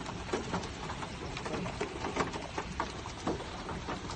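Hail and rain striking a car's body and windows from inside the car: a dense, irregular pattering of sharp ticks over a steady rushing noise.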